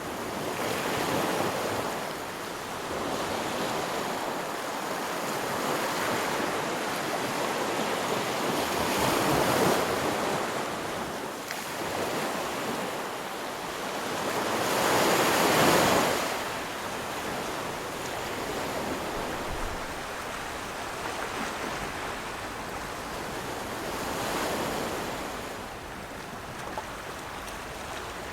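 Ocean waves washing in, a steady rush that swells louder four times, most strongly about halfway through.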